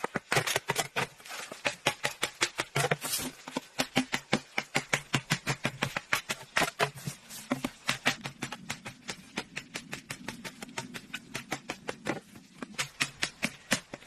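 A machete blade striking and scraping green bamboo in fast, light strokes, about five a second, with a couple of short pauses.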